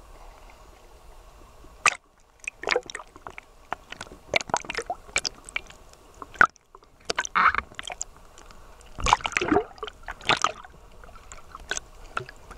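Water sloshing and gurgling around a camera dipped under the sea surface, with irregular splashy crackles as a snorkeler swims close by.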